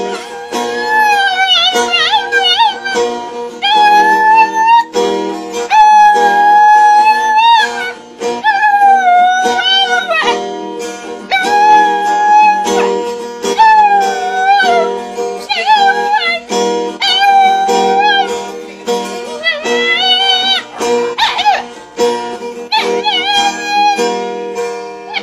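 A dog howling along to a strummed acoustic guitar, in long wavering held notes with short breaks between them, over the steady guitar chords.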